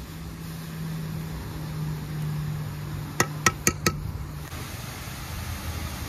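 A metal spoon tapped four times in quick succession on the rim of a steel pan, each tap ringing briefly, a little over three seconds in.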